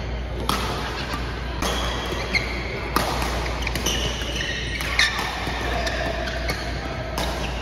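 Badminton rackets striking a shuttlecock in a fast doubles rally, sharp smacks every one to two seconds, with short shoe squeaks on the court floor between them.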